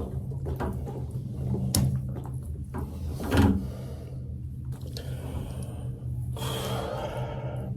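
Knocks and clicks of tools and metal fittings while a radiator valve is changed on a filled heating system, over a steady low hum. The loudest knock comes about three and a half seconds in, and a hissing rush follows near the end.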